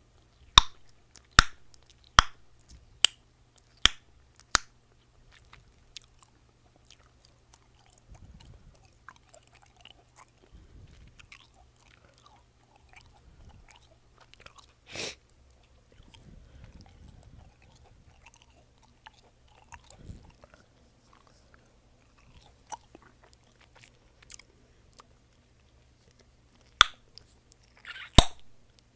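Close-up chewing gum being chewed and snapped: a run of sharp pops about once a second at the start, then soft wet chewing, and a few more pops near the end. About halfway through there is one short, louder breathy noise.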